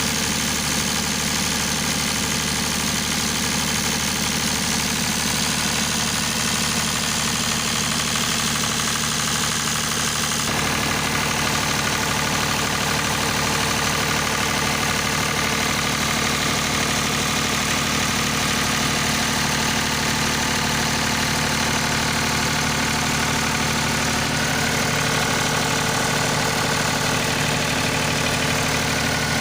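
Diesel generator engine running steadily at constant speed, with the usual diesel knock. Its tone shifts slightly about ten seconds in.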